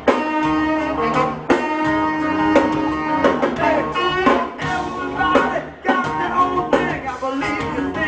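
Live band playing, with electric guitar, horns and drums, heard from among the audience.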